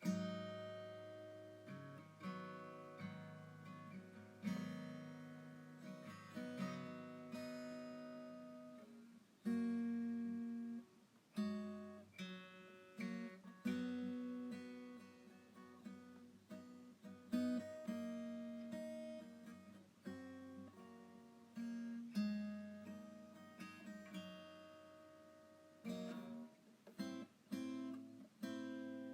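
Background music: acoustic guitar played slowly, plucked notes and chords ringing out and fading one after another.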